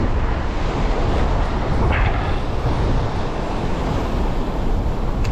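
Strong wind buffeting the microphone, with heavy surf breaking behind it. A short, brighter rush comes about two seconds in.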